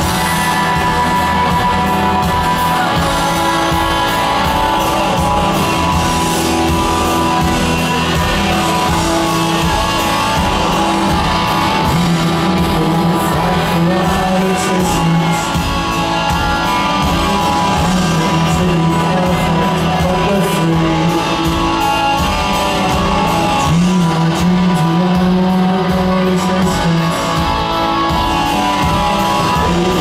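Live rock band playing in an arena, recorded from the crowd: electric guitars, bass, keyboards and drums, with a male lead vocal singing over them.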